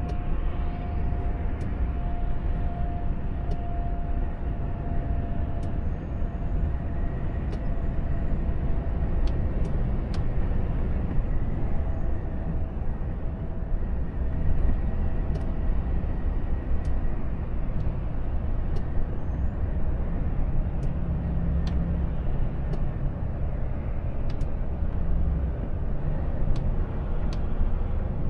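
Inside a Volvo FH truck's cab: steady low engine and road rumble while driving, with a few faint scattered ticks.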